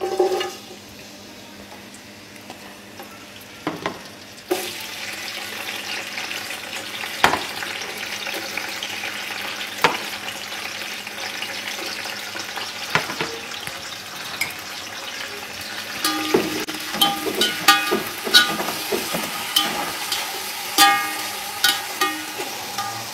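Julienned carrots, raisins and almonds sizzling in hot cooking oil in a metal pot, a steady frying hiss that gets a little louder about four seconds in. In the last third, a stirring utensil clinks and scrapes against the pot again and again.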